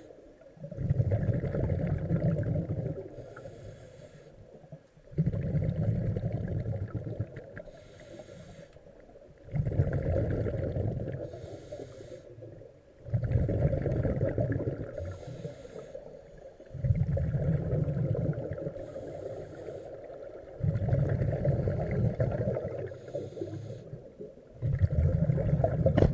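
Scuba diver breathing through a regulator underwater: a loud burst of exhaled bubbles about every four seconds, each lasting about two seconds, with quieter inhalations between.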